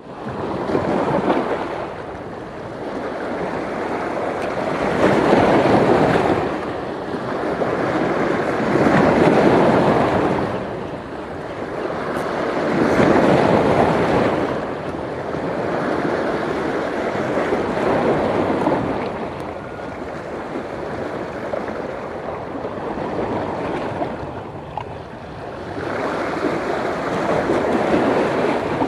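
Sea waves breaking and washing over shoreline rocks, swelling and ebbing in surges about every four seconds: a rough, choppy sea.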